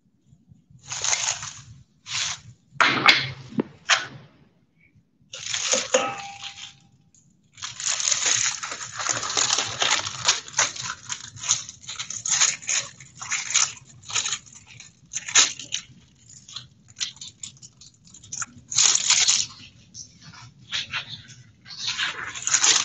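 Hands working a slab of bacon at the kitchen sink: crinkling and tearing of its plastic wrap, and rough rubbing and scraping as the meat is scrubbed with salt. It comes in short separate bursts over the first six seconds, then goes on almost without a break from about eight seconds in.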